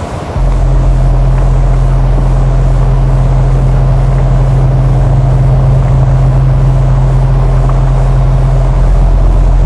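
Noise music: a loud, steady low droning hum under a dense hiss. It cuts in suddenly about half a second in.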